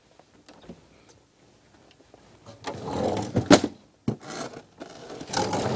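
Upright freezer's plastic drawer being slid and handled: a sliding scrape, a sharp knock a little past halfway, and another sliding rub near the end.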